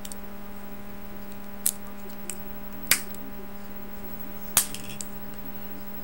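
Sharp plastic clicks from small eyeshadow compacts being handled, three louder ones a second or two apart, over a steady low electrical hum.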